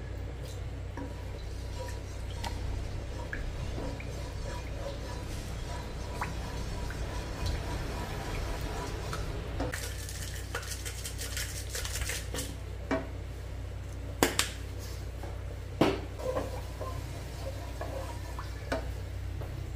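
Wooden spoon stirring a soy-sauce and honey glaze in a non-stick wok over a steady low hum. About ten seconds in, a jar of parmesan powder rattles as it is shaken over the pan, and a few sharp knocks of the utensils on the pan follow.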